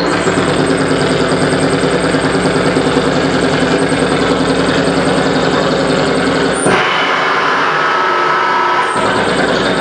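Harsh noise music: a dense, unbroken wall of noise over a low droning pulse. About two-thirds of the way through, the low end cuts out suddenly for about two seconds, then comes back.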